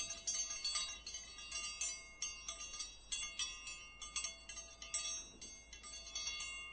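A jingle of high, bell-like chime notes, struck several times a second and left ringing.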